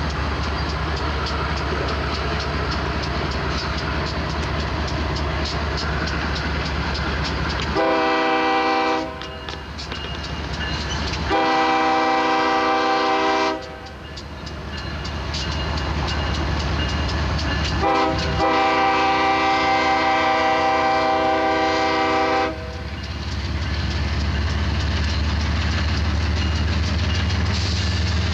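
Lead locomotive BNSF 7544, a GE ES44DC, and the diesel units behind it pull a heavy coil train away, with a steady deep engine rumble. The locomotive's multi-note air horn sounds the grade-crossing signal starting about eight seconds in: long, long, short, long, the last blast about four seconds.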